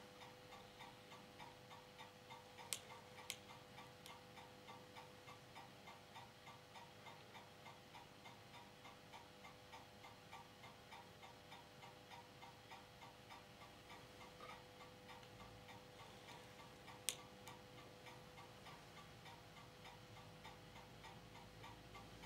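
Faint running hum of an Ania 5 filmstrip projector, with regular soft ticking about twice a second. A few sharp clicks, two close together a few seconds in and one more later, as the filmstrip is advanced to the next frame.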